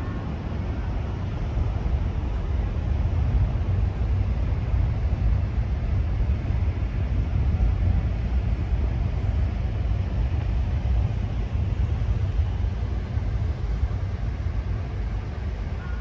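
Wind buffeting the microphone: a loud, uneven low rumble over faint outdoor city background.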